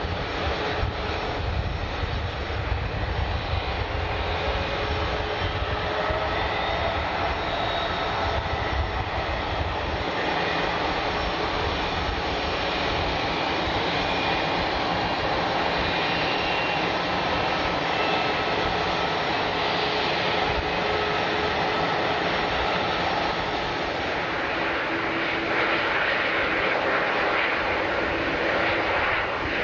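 Airliner engines running, a steady rush of noise with faint whining tones that drift slightly in pitch, and a deep rumble that fades after about ten seconds.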